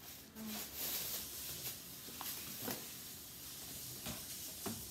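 Thin plastic shopping bag crinkling and rustling as a boxed kit is pulled out of it, with a few light knocks of the box.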